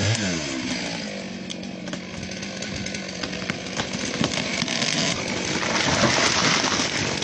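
Chainsaw running at high revs. Its engine note slides in the first second, then holds steady, with scattered sharp cracks and ticks over it.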